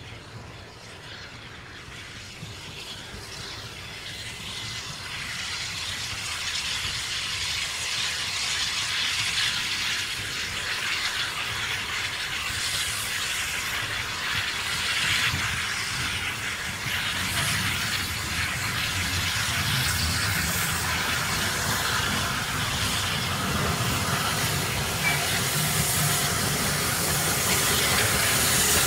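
Orenstein & Koppel steam tank locomotive working a train, with steam hissing from its open cylinder drain cocks. It gets steadily louder as it approaches.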